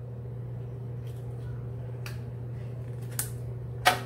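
Hands handling small items on a tabletop: a few light clicks and taps in the second half, the sharpest near the end, over a steady low hum.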